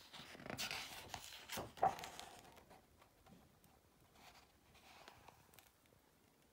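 Pages of a photography book being turned by hand: faint paper swishes and rustles, the clearest in the first two seconds with a light tap near two seconds in, and softer ones about four to five seconds in.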